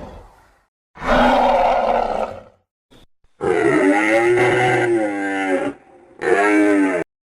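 Dinosaur sound effects: a rough roar about a second in, then two pitched bellowing calls whose pitch rises and falls, the first about two seconds long, the second shorter and cut off sharply.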